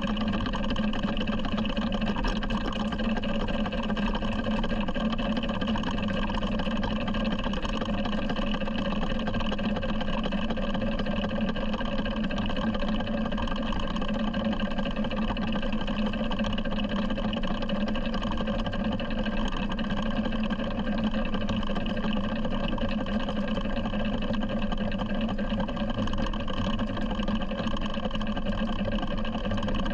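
7¼ inch gauge miniature locomotive running along the track, its motor giving a steady, unchanging drone.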